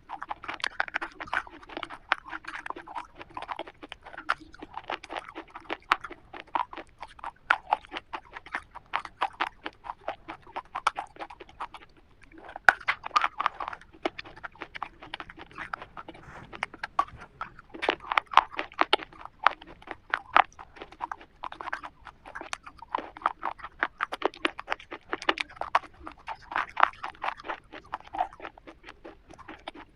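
Close-up crunching and chewing of a black KitKat chocolate wafer bar: dense, irregular crisp crackles of the wafer breaking between the teeth.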